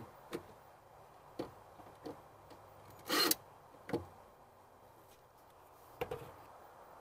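Scattered light taps and clicks of a cordless drill and screws against a chrome courtesy-light bezel, with one short burst of the drill driving a mounting screw a little past three seconds in. Single knocks follow near four and six seconds.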